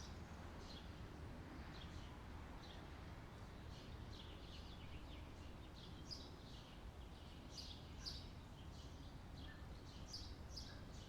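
Faint outdoor birdsong: many short, high chirps from small birds, over a steady low background rumble.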